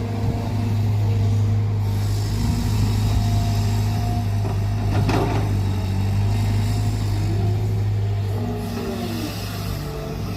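Cat 320GC hydraulic excavator running while digging, its diesel engine a steady drone with tones that come and go and rise and fall as the hydraulics take load. There is a short burst of noise about halfway through.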